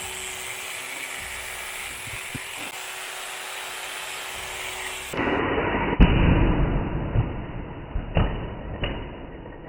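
A Bosch GWS 18V-10 cordless brushless angle grinder runs with a steady whine. After about five seconds the sound changes abruptly to a louder, rougher noise, with a hard knock about six seconds in and two more knocks near the end.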